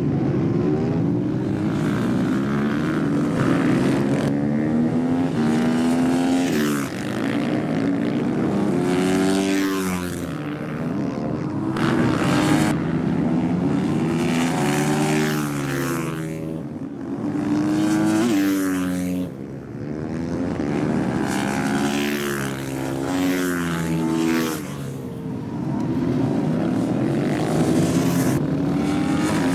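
Supermoto motorcycle engines racing past, more than one at once, repeatedly revving up through the gears and dropping off for the corners.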